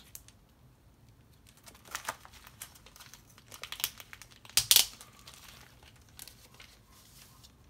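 Plastic comic-book sleeve crinkling as a comic is handled and turned over: a run of short crackles from about two seconds in, the loudest a little past the middle, then quiet.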